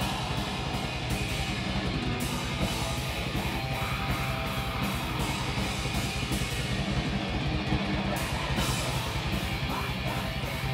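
A live metal band playing: two electric guitars over fast, dense drumming.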